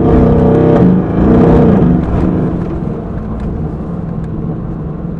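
Twin-turbocharged 4.0-litre V8 of a Mercedes-AMG GT R Pro heard from inside the cabin while driving, loud and wavering in pitch for about the first two seconds, then settling to a quieter steady run.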